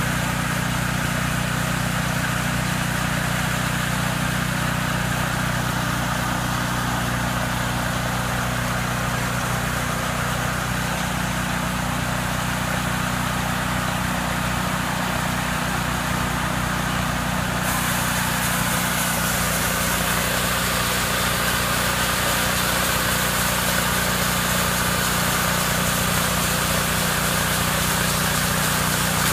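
Band sawmill headrig running steadily while it saws a log on the carriage, a continuous even machine drone.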